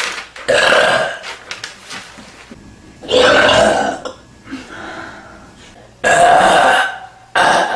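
A woman burping loudly: three long, deep burps about three seconds apart, the third followed at once by a short one.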